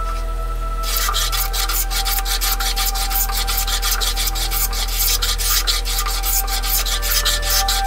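Background music with steady tones for about the first second. Then a metal bench plane shaves the sole of an old wooden jointer plane, being flattened, in a quick, even run of rasping strokes, roughly five a second.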